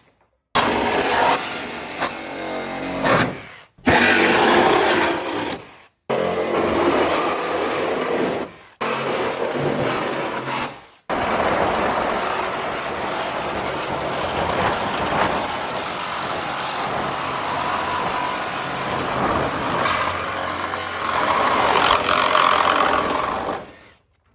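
Bosch reciprocating saw running in several short stretches, each cut off abruptly, then one long unbroken run of about thirteen seconds.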